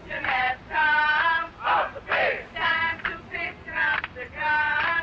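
A group of voices chanting loudly in unison with a rhythmic, sung cadence, about two syllables a second.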